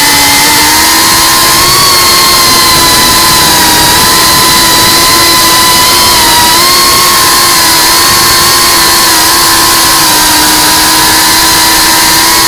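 FPV quadcopter's electric motors and propellers whining steadily, heard close up from the drone's own camera, the pitch wavering a little with the throttle over a hiss of rushing air.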